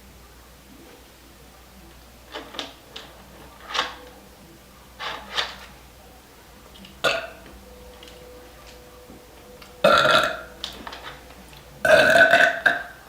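A girl burping over and over from fizzy Vanilla Coca-Cola, small burps at first, then two much louder ones near the end, the last the longest at nearly a second.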